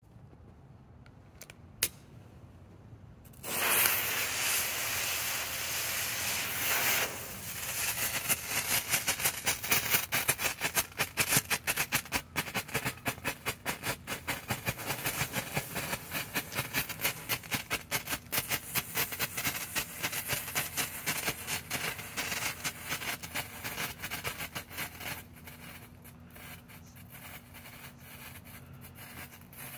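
Black Cat Magnum Flasher strobe pellets burning: a sudden loud hiss as they ignite, then rapid, irregular popping with the flashes. The popping thins out and dies down after about twenty seconds.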